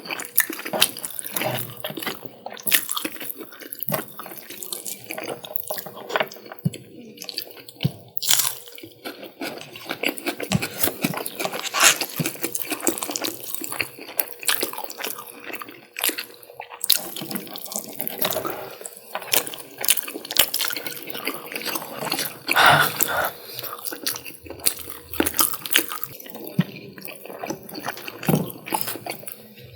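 Close-miked eating: chewing and mouth smacking on chicken curry and rice, a dense run of small sticky clicks and smacks.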